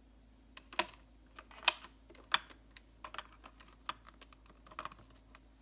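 Irregular hard-plastic clicks and taps from a Playskool Big Frank toy figure being handled and its hinged chest panels shut, with about a dozen sharp clicks, the loudest a little under two seconds in.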